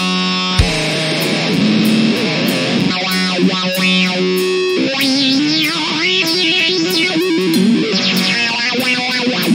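Instrumental rock music led by an electric guitar: held notes at first, then a wavering, bending melody line through the second half.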